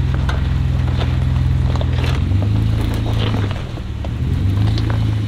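An off-road SUV engine running at low, steady revs in four-wheel-drive low range as the vehicle crawls over rough ground. The engine note shifts a little as the throttle changes, with scattered clicks and scrapes from the tyres and body working over the terrain.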